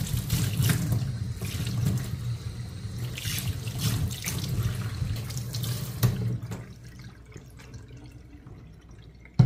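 Kitchen tap running, the water pouring over hair and splashing into the sink as it is washed. The flow stops about six seconds in.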